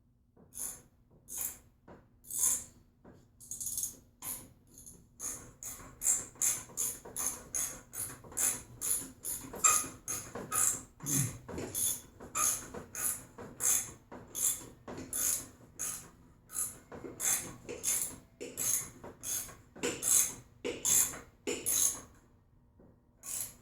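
Ratchet wrench clicking in repeated short strokes, about two or three sharp clicks a second, as a spark plug socket screws a Helicoil thread insert into a spark plug hole.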